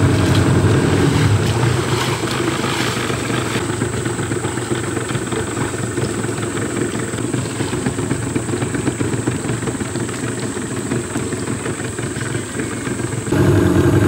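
Boat engine running steadily. Through most of the middle its note sinks under an even rushing noise of wind and water, and it comes back loud near the end.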